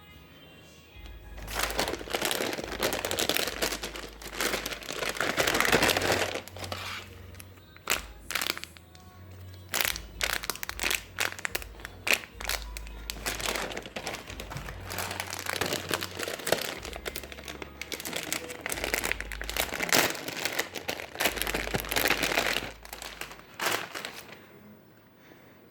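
Packaging crinkling and rustling in irregular bursts as it is handled and torn open, pausing briefly a few times and stopping near the end.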